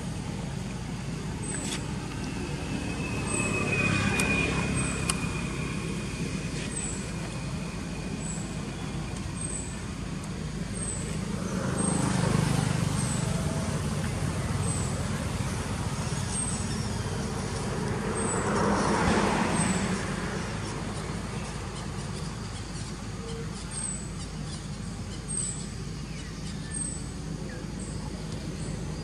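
Outdoor background of steady low traffic rumble, with vehicles passing three times, each swelling up and fading over a few seconds. A short high chirp repeats about every second.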